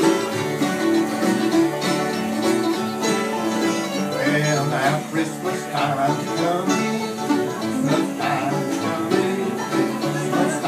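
Acoustic string band playing bluegrass: a mandolin and acoustic guitars being picked together in a steady, continuous tune.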